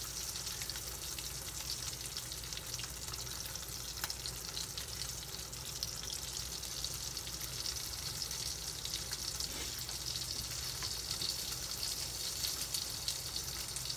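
Salted mackerel fillets frying in oil in a frying pan: a steady sizzle with fine crackling.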